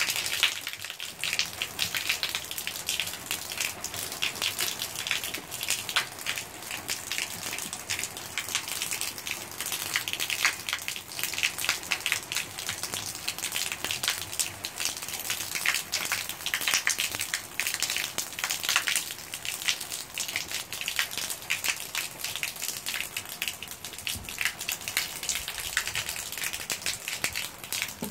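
Steady rain falling and striking a wall and the floor below, a dense, unbroken spread of small drop impacts.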